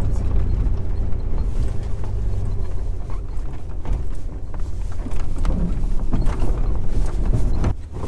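Jeep Wrangler TJ's 4.0-litre inline-six running as the Jeep drives over a rough trail: a steady low rumble with irregular knocks and rattles. The rumble eases shortly before the end.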